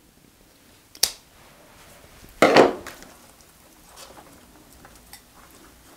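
A single sharp scissors snip through a syngonium stem about a second in, then a louder crunching rustle of chunky bark potting mix as cuttings are pushed into the pot, followed by faint small clicks and scrapes.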